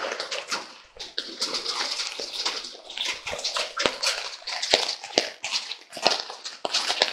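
Heavy rain splashing and dripping around an open shed, with many irregular taps of drops and splashes.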